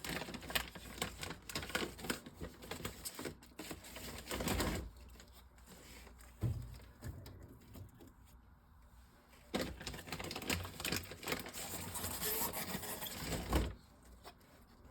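Plastic water bottles clicking, knocking and crinkling as they are handled and set into a fridge. There are two busy spells of handling with a quieter gap in the middle, and the second spell is mostly rustling.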